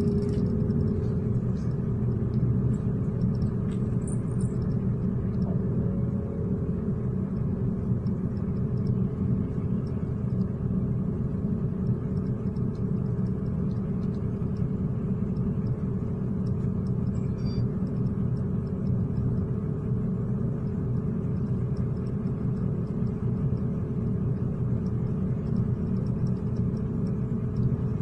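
City bus in motion heard from inside the passenger cabin: a steady low rumble of engine and road noise with a constant hum.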